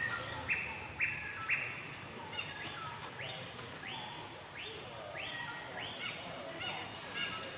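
A bird calling a steady run of short chirps, about one and a half a second, each starting sharply and dropping slightly at its end.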